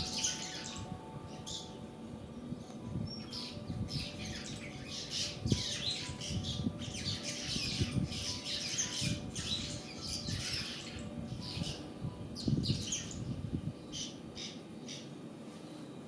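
A colony of fairy martins twittering and chattering, with many short, high calls overlapping throughout, and soft low thumps here and there.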